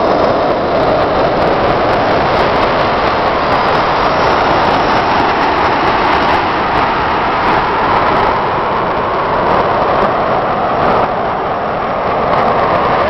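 Four small RC model jet turbine engines running together on a test stand, a loud, steady rushing noise.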